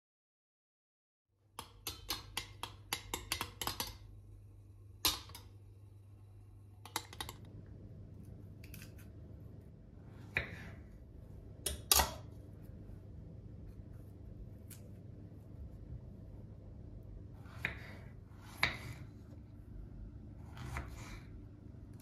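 Kitchen knife cutting strawberries on a bamboo cutting board: single sharp knocks of the blade on the board every few seconds, after a quick run of light clicks early on, over a low steady room hum.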